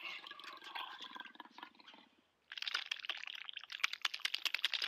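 Bubbling water sound effect: a rapid, dense patter of small pops and clicks that starts about halfway through, after a faint rustling tail that dies away into a brief silence.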